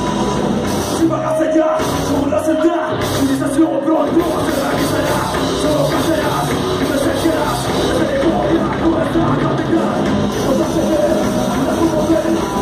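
Live rock band playing loudly in a hall: drum kit, electric guitar and bass, with a man singing into the microphone.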